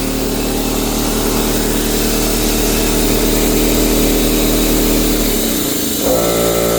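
Fortress 27-gallon 200 psi air compressor's electric motor and pump running steadily, now that its brush is making good contact again; about five seconds in it is shut off and winds down, falling in pitch. Just after, another motor starts running with a steady hum.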